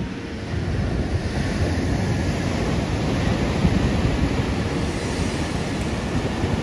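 Sea surf breaking and washing up on a sandy beach, with wind rumbling on the microphone; it grows a little louder about a second in.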